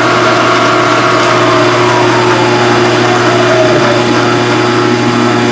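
Steady hum of a Phase-O-Matic phase converter powering a Bridgeport E-Z Trak CNC mill. Between about one and four seconds in, a motor whine from the mill slowly falls in pitch.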